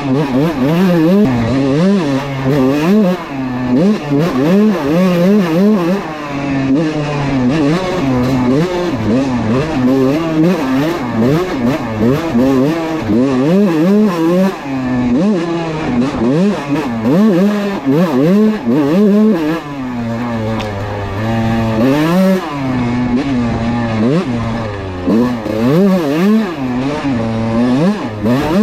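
Kawasaki KX125 two-stroke dirt bike engine under way, revving up and dropping back over and over as the throttle is worked through the gears, easing to a lower, steadier note briefly about two-thirds of the way in.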